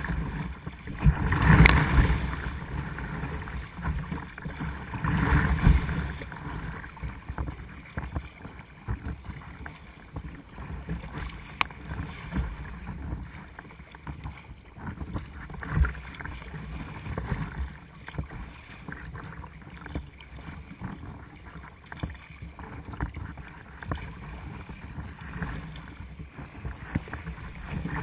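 Choppy sea splashing and washing against a sea kayak's bow and foredeck, coming in surges every few seconds. The loudest surges are about a second and a half in, around five seconds in, and at the end as a wave breaks over the deck.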